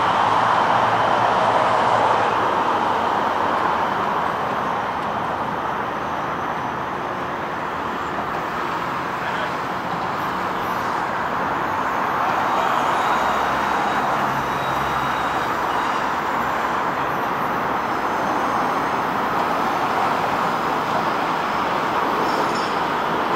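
Steady road-traffic noise with no single event standing out, swelling slightly again after a small dip midway.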